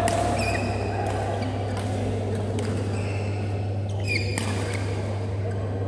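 Badminton play in a large hall: several sharp taps of rackets striking a shuttlecock and a few short squeaks of court shoes, over a steady low hum and general hall noise.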